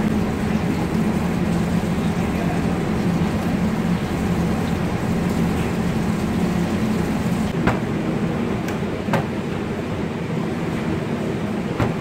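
Steady low drone of a commercial kitchen's extractor hood fan, with a few short sharp knocks in the second half.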